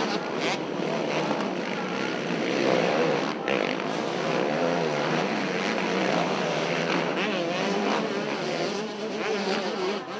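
Several motocross bike engines revving hard as the bikes race, their pitch repeatedly rising and falling with throttle and gear changes.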